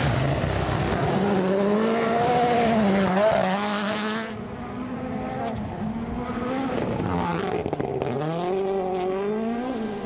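Rally car engines revving hard, the pitch climbing and dropping again and again with throttle and gear changes as a car passes. About four seconds in, the sound cuts to a second car, which accelerates with a rising pitch near the end.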